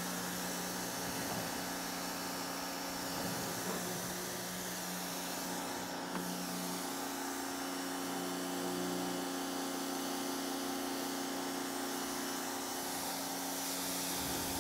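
TEANDE 1800 W electric pressure washer running under load, its motor and pump giving a steady hum under the hiss of the high-pressure water spray.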